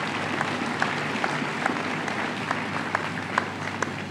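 A congregation applauding: a dense patter of many hands clapping that dies down near the end.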